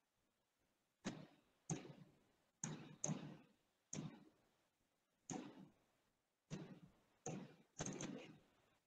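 Faint computer mouse clicks, about ten short, sharp clicks at an irregular pace, as elements are selected in CAD software.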